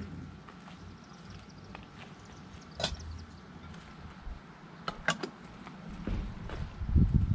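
Light clinks and taps of metal communion vessels, a chalice and its plates, being handled on the altar while they are cleared and purified after communion, with sharp clinks about three and five seconds in. A low rumble swells near the end and is the loudest sound.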